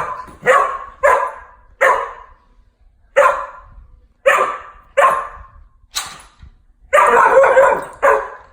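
Vizsla puppy barking repeatedly: about ten sharp single barks spaced a half-second to a second apart, with a longer run of rapid barking about seven seconds in.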